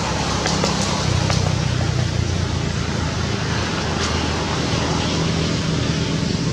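A steady low engine hum, as of a motor vehicle running nearby, under a constant hiss.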